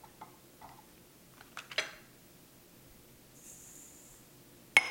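Handling sounds at a stand mixer whose motor is off: a few soft taps and scrapes, a brief soft hiss of granulated sugar pouring into the mixing bowl about three and a half seconds in, then a sharp, ringing clink against the metal mixing bowl near the end.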